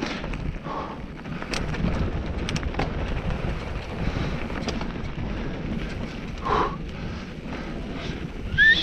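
Mountain bike riding fast down a dirt trail: wind rushing over the camera microphone, knobby tyres rolling over loose dirt and leaves, and the bike rattling with many small clicks over the bumps. Near the end a short rising squeal stands out as the loudest sound.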